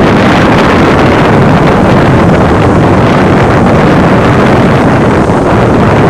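Strong beach wind buffeting a microphone despite its furry windscreen: very loud, continuous gusting noise.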